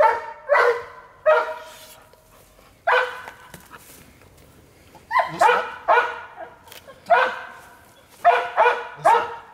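A dog barking repeatedly: about a dozen short, high-pitched barks, some in quick runs of two or three and some with pauses of a second or two between them.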